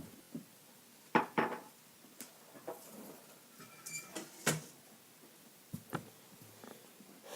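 A few scattered knocks and light clatter of things being picked up, moved and set down, the sharpest about a second in and others near four and a half and six seconds.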